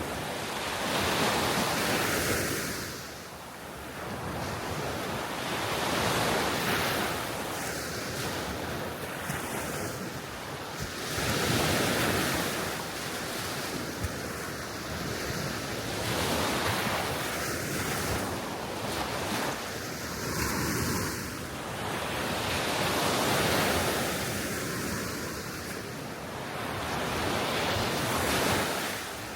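Gentle sea waves washing onto the Baltic shore, the surf swelling and falling back every five seconds or so, with wind blowing on the microphone.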